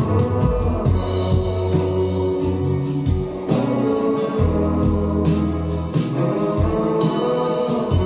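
Music played back through desktop speakers as a sound test of an S.M.S.L. RAW MDA1 digital-to-analog converter, with deep held bass notes that change every few seconds and guitar.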